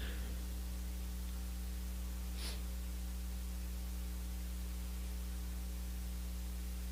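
Steady electrical mains hum, a low buzz with evenly spaced overtones, with one faint brief rustle about two and a half seconds in.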